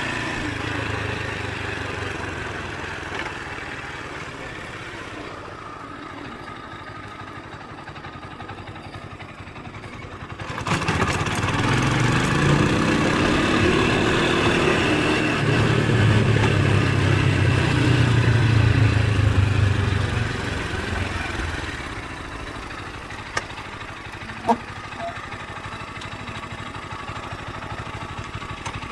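Motorcycle engine running as the bike rides about. It fades for a while, then about ten seconds in suddenly gets louder and rises in pitch as it accelerates, stays loud for several seconds, and drops back. Two short clicks follow.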